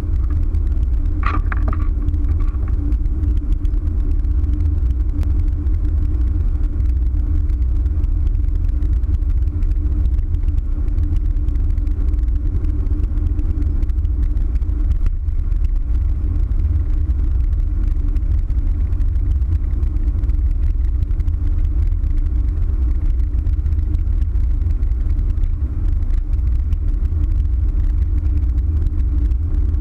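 Steady low rumble of a vehicle driving at highway speed, heard from inside the cabin, with a constant hum under it. A brief higher-pitched sound about a second in.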